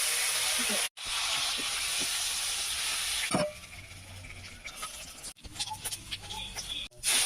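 Food sizzling in hot oil in a cooking pan, a steady hiss that stops abruptly and restarts several times, with a quieter stretch in the middle holding light utensil clicks.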